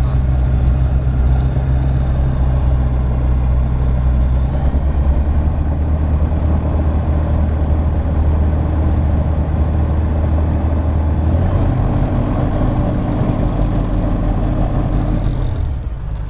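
Light aircraft's piston engine running steadily at low power, heard from inside the cockpit, with its pitch shifting about four seconds in and again past the middle.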